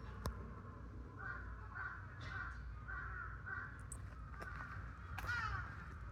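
A bird calling: five short calls about half a second apart, then a louder call with sliding pitch near the end. A single sharp click just after the start, over a steady low rumble.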